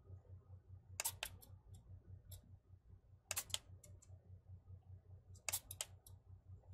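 A 2-gram micro servo moving the added aileron in three short bursts of clicking, about two seconds apart, as it is switched between its centre and end positions.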